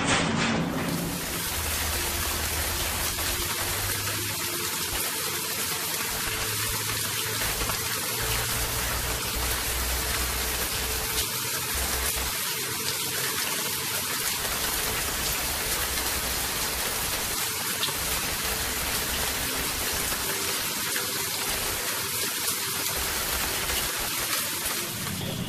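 Steady, even rushing hiss of a storm at sea, like heavy rain, holding one level throughout.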